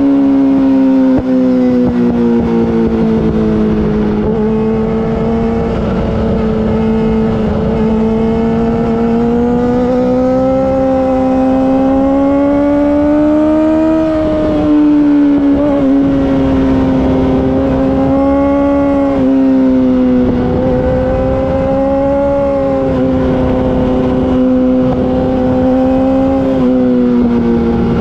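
Yamaha R6 inline-four running through an Akrapovic Evolution Racing exhaust at high revs while riding, its engine note rising and falling with the throttle several times, with wind rush underneath.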